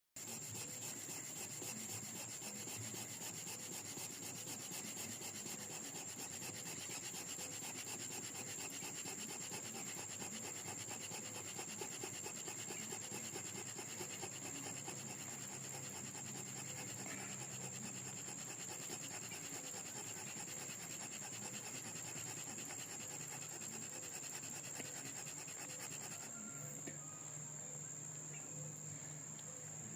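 Fire plow: a hardwood stick rubbed rapidly back and forth along a groove in a wooden base to raise friction heat, an even rhythmic scraping that stops near the end. A steady high insect drone runs underneath.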